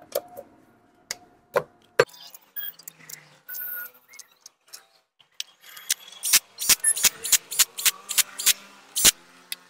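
Sharp metallic clicks and clinks of bolts and tools as a side cover is fitted onto a motorcycle engine's crankcase, scattered at first and then a quick run of clicks in the last few seconds as the cover bolts are driven in.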